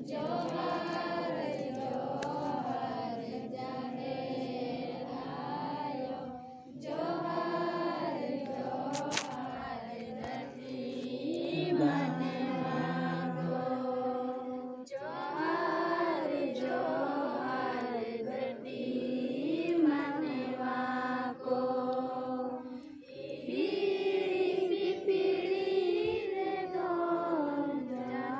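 A group of voices singing together in unison, a chant-like devotional song in four long phrases with short pauses between them.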